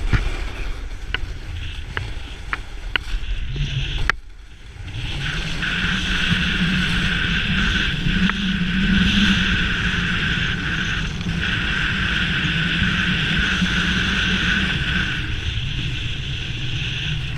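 Snowboard sliding and carving on groomed snow: the board's edge scraping with a steady hiss, with wind buffeting the camera's microphone. A few clicks in the first seconds and a knock about four seconds in, after which the carving hiss grows louder and holds steady.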